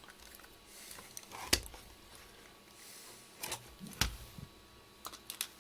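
Small screws and a screwdriver being handled at the meter's case: a handful of short, sharp clicks and taps, the loudest about a second and a half in, with a quick cluster near the end.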